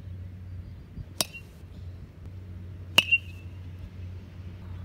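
Metal baseball bat striking pitched balls: two sharp, ringing pings about two seconds apart, the second louder.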